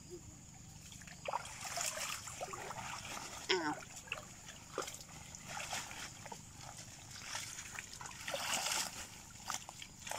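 Shallow stream water splashing and sloshing in irregular bursts as a plastic sheet is pulled and shaken through it by hand. A brief rising call is heard about three and a half seconds in.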